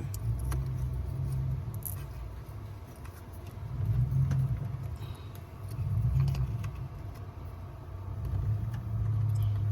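Ford Escape's V6 engine running with a low hum, swelling louder three times: about four, six and nine seconds in. It has just had new spark plugs and coil packs fitted.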